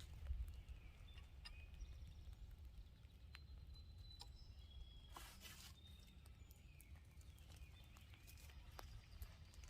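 Near silence: faint outdoor ambience with a low wind rumble, scattered light clicks, and a short hiss about five seconds in.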